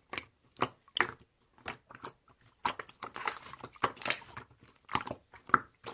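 Slime being squeezed and pressed by hand, making irregular wet clicks and crackles.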